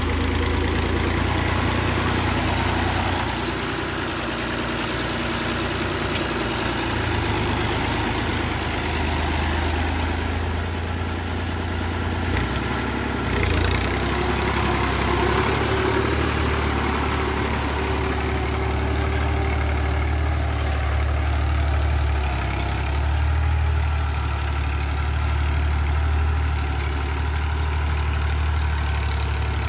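Ghazi tractor's diesel engine running steadily under load while pulling a plough through a stubble field, its engine note shifting a few times.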